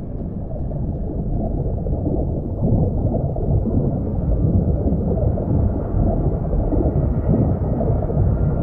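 Muffled, low rumbling and gurgling of churning water, heard from below the surface; it grows louder about two seconds in.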